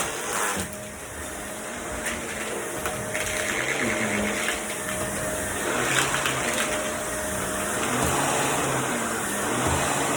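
Household vacuum cleaner running steadily, its motor giving a constant noise with a faint steady tone, and a brief knock about six seconds in.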